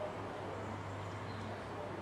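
Faint birdsong, a few short high chirps, over a steady low hum and a constant background hiss.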